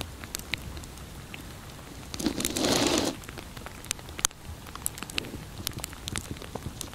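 Footsteps crunching and rustling through dry leaves and brush, with scattered small snaps and one louder rustling crunch a little over two seconds in.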